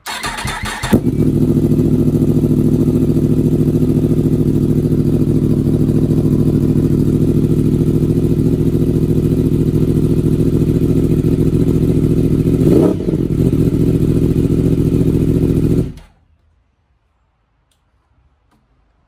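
Yamaha YZF-R1 inline-four cranked on the starter, catching about a second in and idling loud and steady through an Akrapovic M1 slip-on exhaust with link pipe. One short blip of the throttle near the end, then the engine is switched off abruptly.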